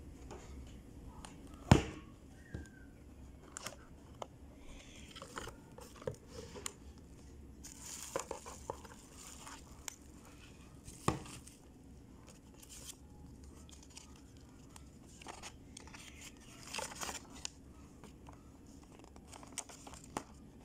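Packaging being handled while an air drill is unboxed: a cardboard box opened, bubble wrap crinkling and a paper manual unfolded. There are scattered sharp knocks and clicks, the loudest about two seconds in and another near the middle.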